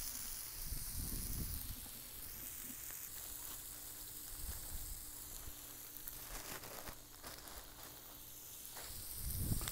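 Steady faint sizzle of burger patties, bacon, onions and jalapenos cooking on a Blackstone flat-top griddle, with a few faint ticks.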